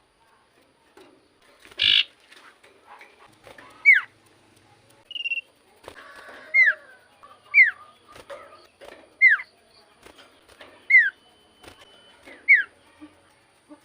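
Iora singing: a series of short, clear whistled notes, each sliding sharply down in pitch, repeated every second or two.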